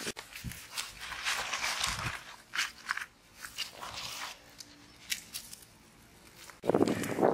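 Crinkling and crackling of a banana leaf and the crisp, charred skin of an ash-roasted fish being handled, in short dry crackles. Near the end a louder, lower sound starts.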